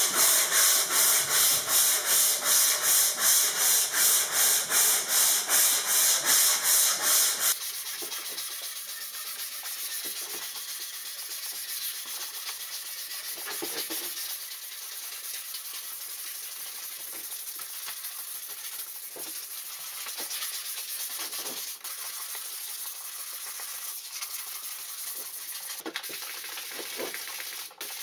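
Sandpaper rubbing by hand on a wooden paddle. It starts as loud, regular rasping strokes of about three a second, then about seven seconds in changes suddenly to a softer, steady rasp with lighter, uneven strokes.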